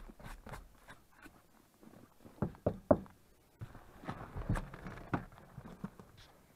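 A VAZ 2105 (Lada) car door being opened and a person climbing into the driver's seat: a run of clicks and knocks, with three sharper knocks a little before halfway, then rustling and shuffling as he settles in.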